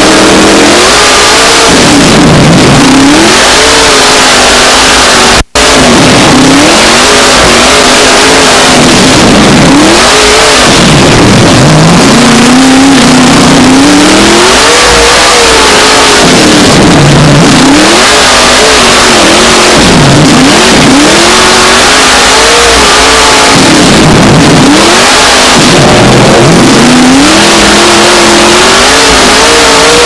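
Dirt late model stock car's V8 engine running hard, heard very loud from inside the car: the pitch climbs and then falls away again every few seconds, over and over, as it accelerates and lifts lap after lap. The sound cuts out for an instant about five seconds in.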